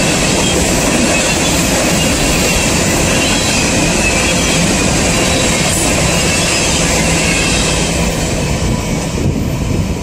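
Freight train cars (covered hoppers) rolling past close by: a steady rumble and rattle of steel wheels on the rail, with a thin high wheel squeal over it. The noise begins to die away near the end as the last cars go by.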